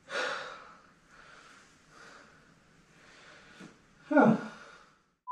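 A man breathing hard and blowing with effort, in several heavy breaths about a second apart, while straining to free a wheel stuck on its hub. About four seconds in comes a louder grunt that falls in pitch.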